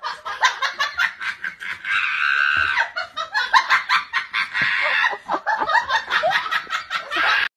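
A person laughing hard in rapid, repeated bursts, with a longer drawn-out stretch about two seconds in.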